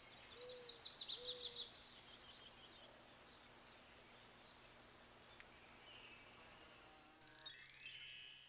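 Birds calling over a faint outdoor background: a quick series of high chirps in the first second and a half, with a few lower whistled notes, then scattered single calls. About seven seconds in, a louder, bright high-pitched sound begins and cuts off at the end.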